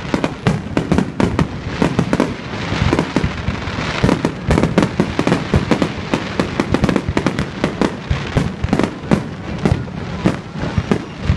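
Aerial fireworks display: a dense, unbroken barrage of shell bursts and crackling reports, several bangs a second.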